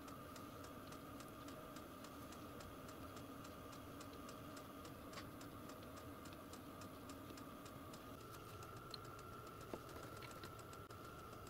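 Faint, regular ticking, about four ticks a second, over a steady low hum.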